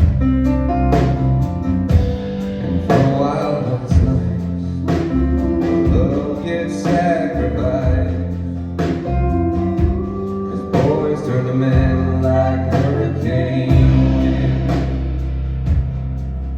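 Live band playing a slow song: a voice singing over guitar and sustained bass notes, with a drum beat about once a second.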